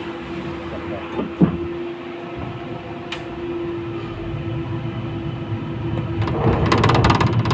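Inside a 71-911EM 'Lvyonok' low-floor tram: a steady hum over the rumble of wheels on the rails, with a single knock early on. Near the end the rumble grows louder into a rattling clatter of the wheels running over the track.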